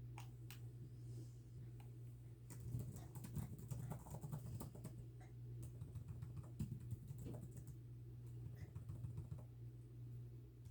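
Computer keyboard typing in uneven runs of quick key clicks with short pauses between, over a steady low hum.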